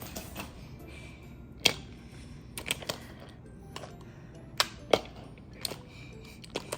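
Brio wooden toy train cars clicking and knocking together as they are handled and coupled into a train: a scattered series of sharp clicks, over soft background music.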